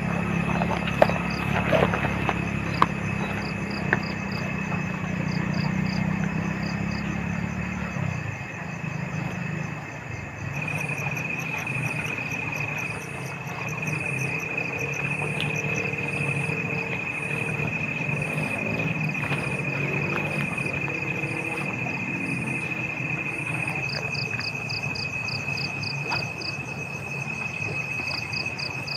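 Forest insects calling: a steady high-pitched trill over evenly repeating pulsed chirps. A low drone underneath stops about eight seconds in, and a few sharp clicks come in the first few seconds.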